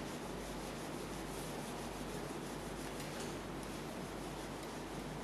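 Whiteboard eraser rubbing across a whiteboard: a quiet, steady wiping.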